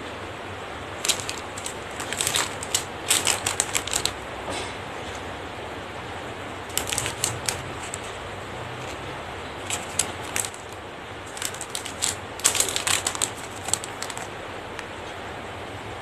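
Small clear plastic packets crinkling as they are handled, in several short clusters of crackles with quieter gaps between.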